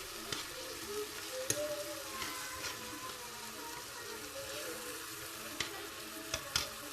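Chopped vegetables sizzling in hot oil in a frying pan as they are stirred, with several sharp clicks and scrapes of the spoon against the pan.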